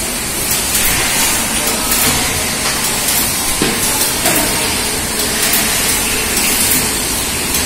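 Bottling-line machinery in a packaged drinking water plant running steadily, a continuous hiss over the mechanical noise, with occasional faint clicks.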